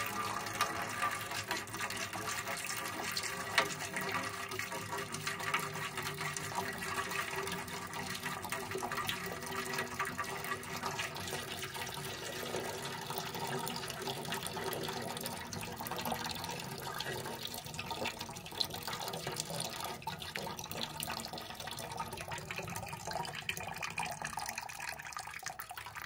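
A thin stream of water from the drain port of a tankless water heater's isolation valve pouring steadily into a galvanized metal bucket as the heater's line is drained.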